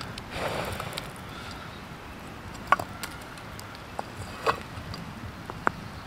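Ash and embers spilling and scattering as a metal lid heaped with hot coals is lifted off a pizza pan, a soft rustle lasting about a second, followed by four sharp clicks spread through the rest.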